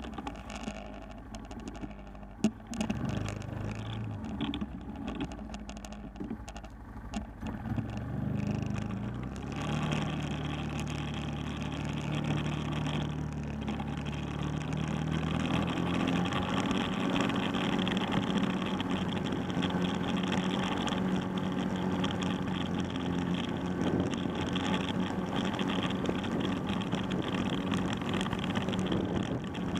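ATV (four-wheeler) engine running at low speed with a few sharp knocks in the first several seconds. About a third of the way in it speeds up, rising in pitch, and holds a higher steady pitch from about halfway, with a steady rush of tyre and wind noise.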